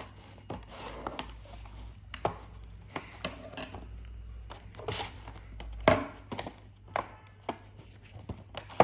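Plastic slime packaging being opened and handled by hand: scattered rustles, taps and clicks, with one sharp knock about six seconds in.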